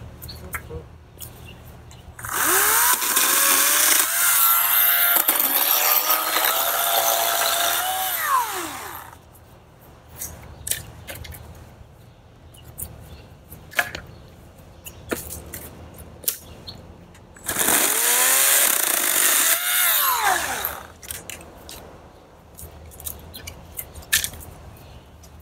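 EGO 56-volt cordless electric chainsaw making two cuts: the motor whines up to speed, runs for several seconds, then winds down, the first cut longer than the second. Between the cuts come scattered knocks and clicks.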